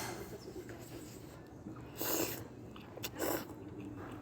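Two short breathy mouth sounds from someone eating hot kimchi ramen, about two seconds and just over three seconds in, with faint chewing between them.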